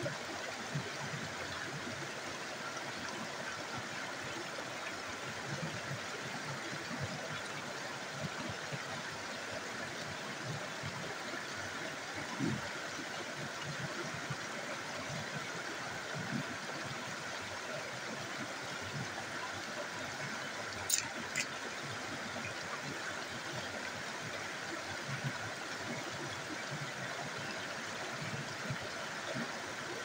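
Small stream cascading over rocks, a steady rushing of water, with two sharp clicks in quick succession about two-thirds of the way through.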